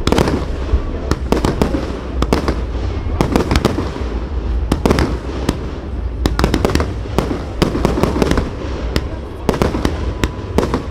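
Fireworks display: many sharp bangs and crackles in quick, irregular succession, several a second, over a steady low rumble.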